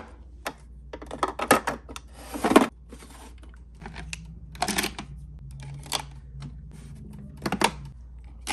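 Makeup brushes and pencils clattering against their glass and acrylic holders as they are handled: a run of separate clicks and knocks, with a longer rattling clatter about two and a half seconds in.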